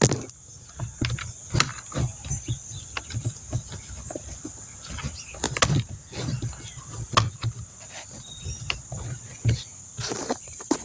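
Irregular plastic clicks and knocks as the plastic cover is worked and pressed onto a new car door lock actuator, with low handling thumps in between.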